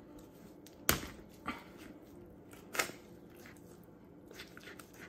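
Dull kitchen knife working through a raw chicken's breastbone, with two sharp cracks or knocks about two seconds apart and a fainter one between them.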